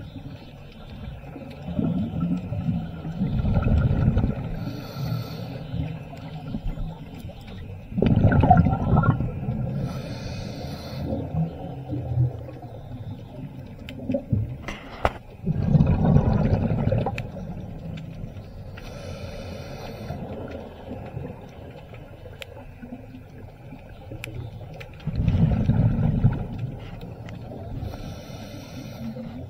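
Scuba breathing heard underwater through a regulator: a short hiss on each inhale and a loud rush of exhaled bubbles, repeating about every eight or nine seconds.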